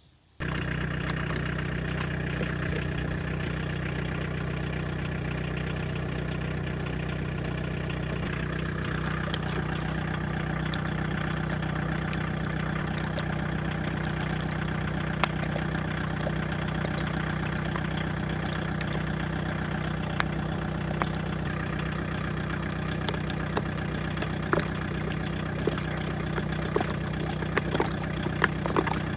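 VW Passat B2's 1.6 four-cylinder diesel idling steadily while fuelled with sunflower cooking oil, with scattered sharp clicks in the second half.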